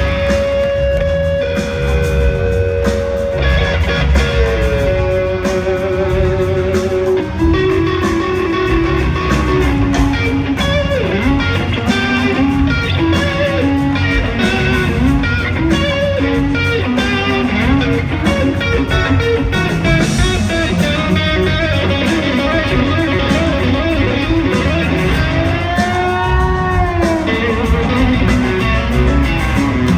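Gibson Firebird electric guitar playing a live rock solo over the full band. It opens with long held notes stepping downward, moves into quicker runs, and bends one note up and back down near the end.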